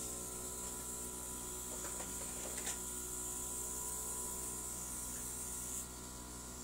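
Steady mechanical hum with a constant high hiss, a few faint clicks about two seconds in, and the hiss dropping slightly near the end.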